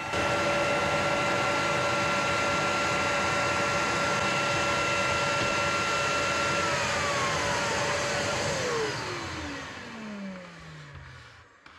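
Compact Makita router motor running at full speed with a steady high whine, then switched off: from about seven seconds in its pitch falls steadily as the motor winds down to a low hum and stops near the end.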